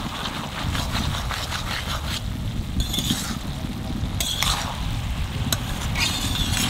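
Metal spatula stirring cabbage and potatoes in a metal kadai, with several short scrapes against the pan about a second apart and a few light clinks, over a steady low rumble.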